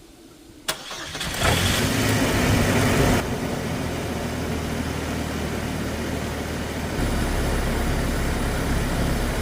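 Chevrolet S10 pickup engine starting after a click, running louder for about two seconds, then settling into a steady idle.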